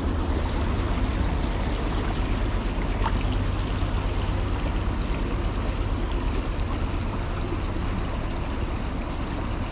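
Shallow creek water running over stones: a steady rushing.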